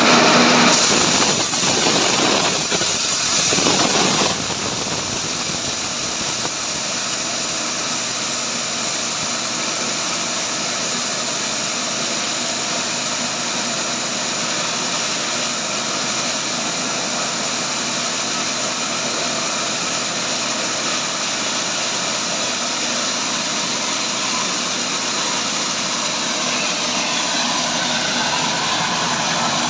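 Grass-chopper machine running steadily while grinding dry corn kernels. It is louder and harsher for the first four seconds or so, then settles to an even whirring noise.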